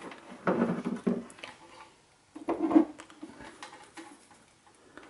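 Handling noise from multimeter test leads being clipped onto a small solenoid valve's coil terminals: a few short, uneven clicks and rustles of crocodile clips and wire on a table.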